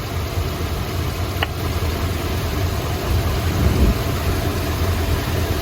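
1972 Chrysler Imperial's 440 V8 idling roughly with a misfire while one spark plug wire is pulled off. The idle does not change with that wire off, a sign that this cylinder, number 7, is not firing.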